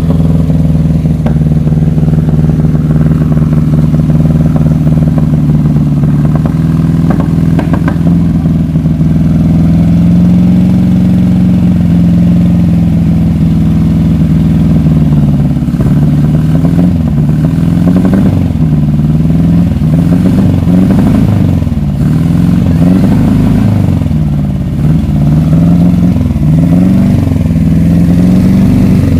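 A vehicle engine running loudly and steadily, then revved up and down over and over through the second half.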